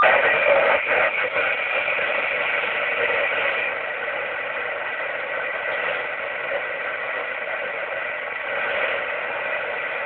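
Steady static hiss from an Ascom 4 m FM transceiver's speaker on 70.300 MHz, the receiver open with no station transmitting after the contact has ended.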